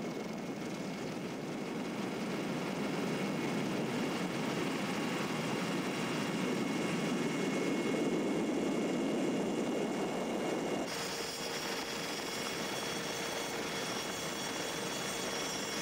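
Steady rushing aircraft engine noise, swelling slightly towards the middle. About eleven seconds in it changes abruptly to a thinner noise with a steady hum.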